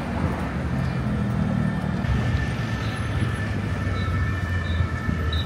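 Road traffic on a city street: vehicle engines running and passing, a steady low rumble. A faint steady high tone comes in about halfway through.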